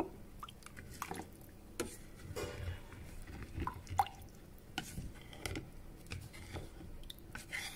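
A spoon stirring rice and water in a stainless steel saucepan: soft watery sloshing with scattered light taps and scrapes against the pan, the sharpest about four seconds in.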